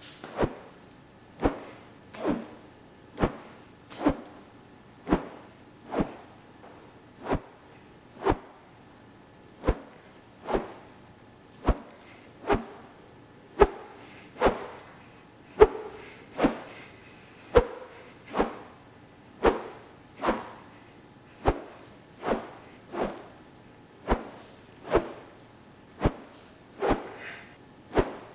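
Whooshes of something swung fast through the air past the microphone, about thirty short swishes roughly one a second, each sweeping up quickly and cutting off.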